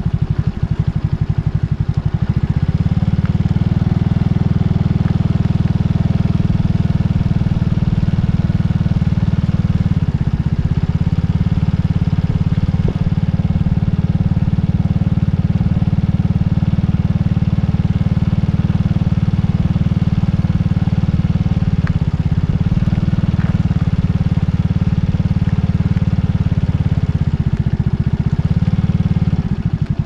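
Motorcycle engine running steadily under way, with a fast, even firing pulse. It eases off briefly a few times, near the start, about a third of the way in, and twice in the last third.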